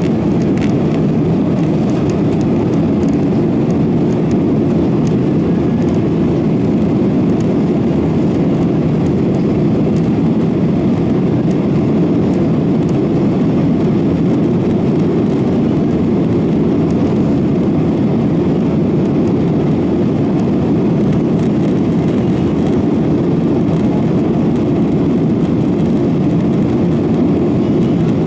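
Steady low rumble of a Boeing 737-900ER's CFM56 jet engines, holding an even level with no rise or fall in pitch.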